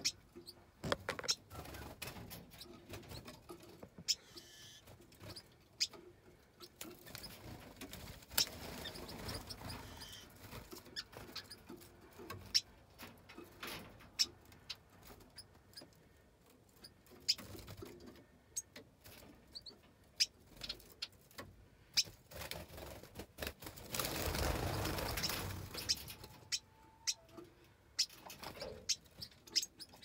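A mixed aviary flock of finches and waxbills giving short high chirps and squeaks, with scattered sharp clicks and a louder rush of noise lasting about two seconds near the end.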